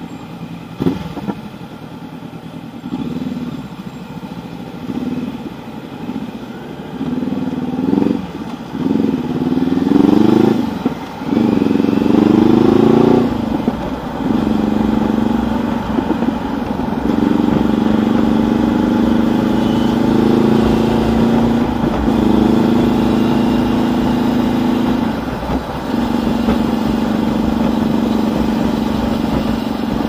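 Motorcycle engine pulling away from slow traffic and accelerating through several gears, its pitch rising and dropping back at each shift, then running at a steady cruise with wind and road noise.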